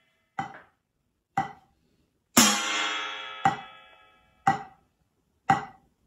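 Drumsticks striking a rubber practice pad and a steel plate in turn, about one stroke a second. The pad strokes are short dry taps. The one steel-plate stroke, about two seconds in, is far louder and rings on like a cymbal for nearly two seconds, showing the rubber pad damping the stroke while the steel plate sustains it.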